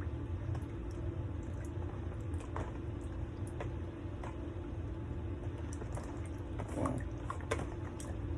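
Raw chicken wings being mixed by hand in a wet batter: soft squishing with scattered small clicks and drips, over a steady low hum.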